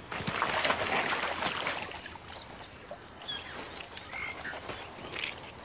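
Muddy waterhole ambience with frogs croaking. Short high calls come now and then, and the croaking is busiest in the first couple of seconds.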